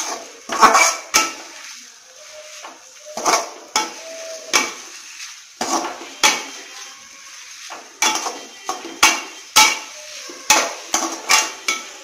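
Slotted metal spatula scraping and knocking against a metal kadai as sliced onions and green chillies are stirred, in irregular strokes about one or two a second.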